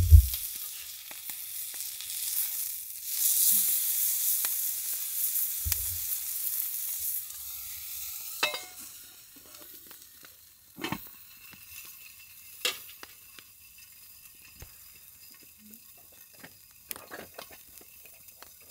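Meat sizzling loudly on a thick steel griddle plate over a wood fire. About eight and a half seconds in, a steel lid is set over the plate and the sizzling becomes much quieter, with a few sharp clicks after it.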